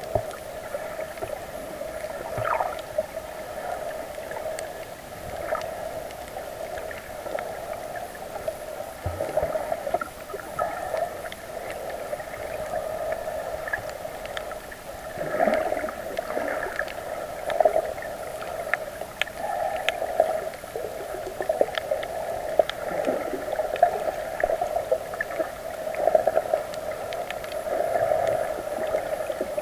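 Underwater sound picked up by a snorkeller's camera: a steady droning hum with swelling water gurgles and scattered faint clicks.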